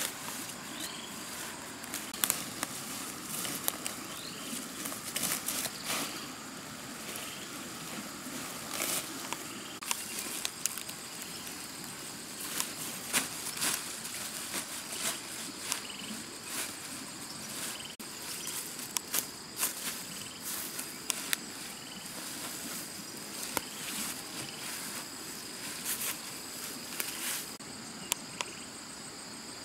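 Cut leafy branches rustling and crackling as they are spread and pressed down into a bed of leaves, with many sharp snaps and crackles scattered throughout. Insects buzz steadily behind as a thin, high, unbroken tone.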